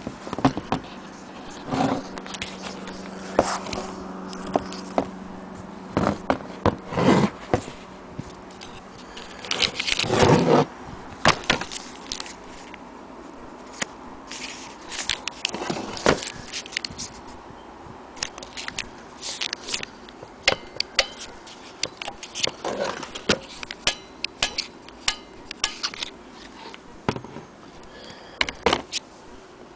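Clicks, knocks and scrapes as the parts of a vintage Hohner accordion are handled and tapped: its latch, strap tab, buttons and bellows. The loudest knocks come about seven and ten seconds in. A faint low steady tone dies away about six seconds in.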